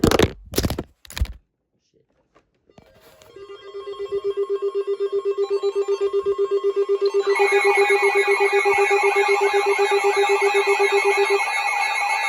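Electronic alert tones. A few sharp knocks come in the first second. About three seconds in, a rapidly pulsing low buzz-like tone starts. About seven seconds in, a higher warbling alarm joins it. The low tone stops near the end while the warble carries on.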